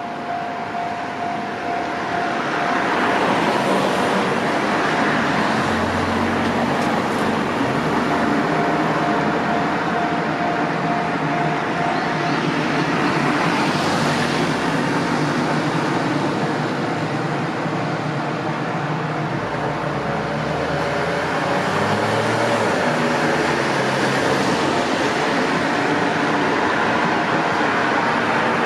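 Electric train running on the JR Minobu Line: a steady noise of motors and wheels on the track. A steady high tone holds for about the first twelve seconds, and a motor whine rises in pitch near the end.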